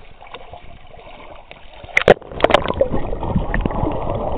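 Swimming-pool water splashing, with a few sharp, loud splashes about two seconds in as the camera goes under. Then the muffled, low rumble of water heard with the microphone submerged.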